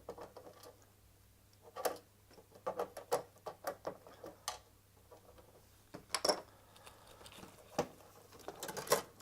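Scattered light clicks and taps of a screwdriver on small screws and of small plastic scanner parts being handled, irregular and a second or so apart.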